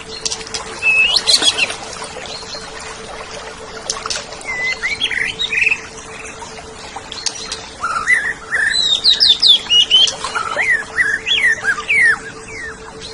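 Oriental magpie-robin (kacer) singing: phrases of varied whistled notes sliding up and down, mixed with sharp clicks. It comes in a short burst about a second in, more around four to six seconds, and a longer, denser run from about eight to twelve seconds, over a faint steady hum.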